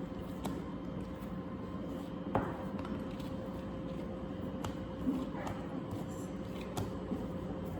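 Scattered light taps and knocks of bread dough being divided into balls by hand on a work surface, over a steady low background hum.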